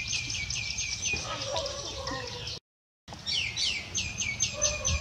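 Small bird chirping: two quick runs of high chirps, each falling sharply in pitch and coming several a second. The audio drops out for about half a second between the runs.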